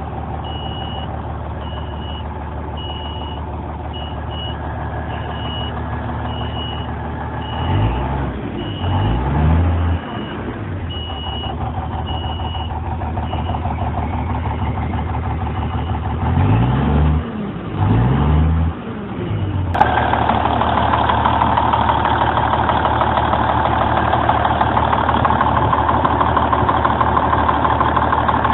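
Peterbilt 379's Cummins N14 Plus 14-litre inline-six turbo diesel idling, revved up and back down twice about eight seconds in and twice again about sixteen seconds in. A high beep repeats about once a second through the first half. Near the end the engine sound becomes abruptly louder and brighter.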